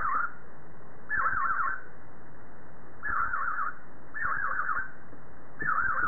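Budgerigar calling in a string of short, rapidly warbling calls, each quickly wobbling up and down in pitch, about one a second with short gaps between.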